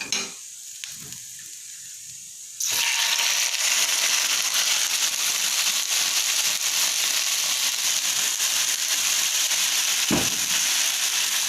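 Marinated chicken frying in hot oil in a pan: a steady sizzle that suddenly gets much louder about two and a half seconds in, with a single light knock near the end.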